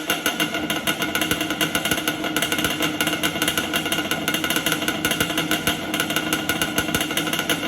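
Yamaha Banshee's two-stroke twin-cylinder engine running at a steady speed, a fast, even rattle of firing strokes.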